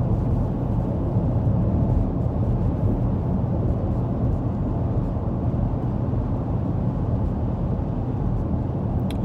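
Steady low road and engine noise inside the cabin of a car being driven.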